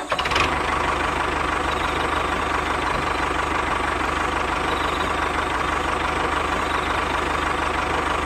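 Tractor engine idling steadily with a fast, even chug. It starts abruptly.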